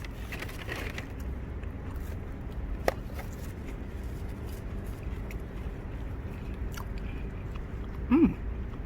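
A person biting into and chewing a fried chicken taco in a crisp toasted flour tortilla, over a low steady rumble. There is a sharp click about three seconds in and a short hummed voice sound near the end.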